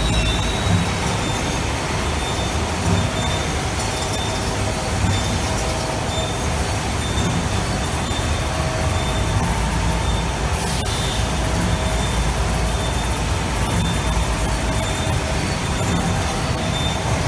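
Four-layer paper laminating machine (flat board machine) running at speed: a steady rumble of rollers and drives, with a thin high tone that comes and goes in short, repeated dashes.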